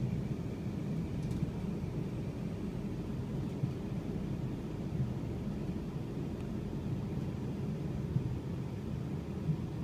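Inside a moving electric passenger train: a steady low rumble of the wheels running on the track, with a few faint knocks along the way.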